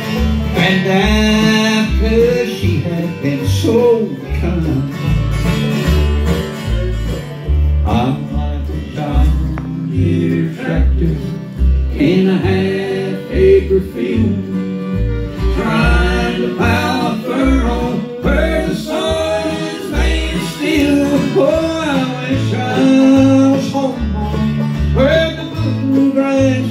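Bluegrass band playing an instrumental break: fiddle, banjo and acoustic guitar over an upright bass keeping a steady beat.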